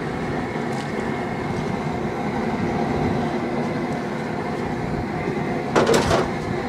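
Raw shrimp tipped from a plastic tray into a large pot of gumbo, heard as a short rush of noise about six seconds in, over a steady rumbling background noise.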